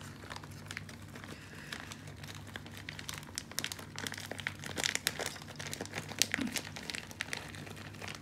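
Plastic bag of shredded cheese crinkling in the hand as the cheese is shaken out, in many small irregular crackles, over a steady low hum.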